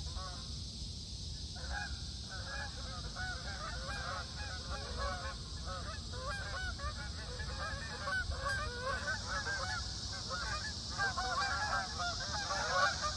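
A flock of birds calling in flight: many short, overlapping calls that come thicker in the last couple of seconds, over a steady background hiss.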